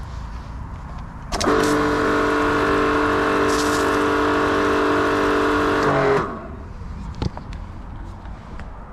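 Bormann Pro BPW 5000 electric pressure washer running for about five seconds: a steady hum with a hiss over it that starts abruptly about a second and a half in and cuts out around six seconds in, dipping slightly in pitch as it stops.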